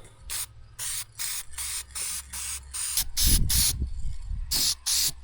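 Aerosol spray paint can spraying in a series of short hissing bursts, a few each second, as chipped paint on a wagon is touched up. A brief low rumble sounds about three seconds in.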